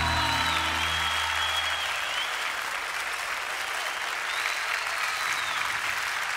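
Live audience applauding, with a few high whistles, as the last guitar chord of the song dies away in the first two seconds.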